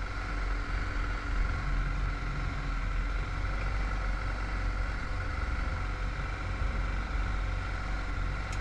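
Steady engine and road noise of a vehicle under way, a constant low rumble with no change in speed.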